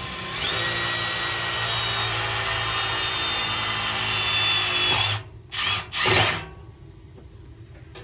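Cordless drill boring a small test hole through the galvanized steel flue pipe above a gas boiler, for a combustion analyzer probe. It runs steadily for about five seconds, then gives two short bursts and stops.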